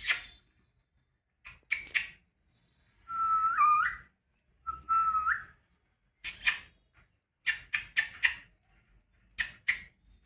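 Pet parrot calling: short, shrill squawks in quick clusters of two to four, with two held whistled notes in the middle that each end in an upward flick.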